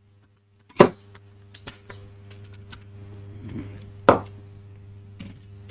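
Sharp knocks and clicks of a car radio's housing and parts being handled and pried apart by hand: two loud knocks, about a second in and near four seconds, with lighter clicks between, over a low steady hum.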